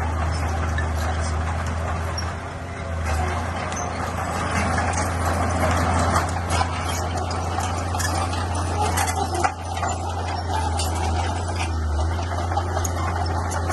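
Bulldozer's diesel engine running steadily under load, with scattered metallic clanks.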